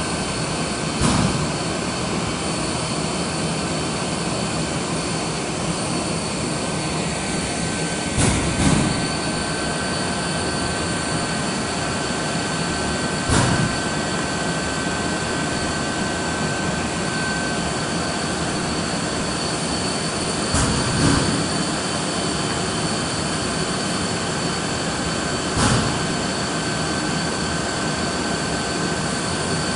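Mitsubishi ML605GTWIV-H laser PCB drilling machine running: a steady mechanical whir with high steady whine tones, broken by short clunks about a second in, twice around eight seconds in, and again near 13, 21 and 26 seconds in.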